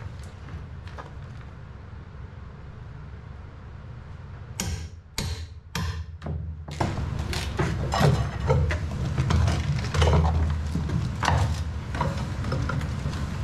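Rotten wooden stringer being pried and ripped out of a fishing boat's shaft alley: a few sharp cracks of splitting wood about four and a half seconds in, then continual scraping and knocking of wood and tool. A steady low hum runs underneath.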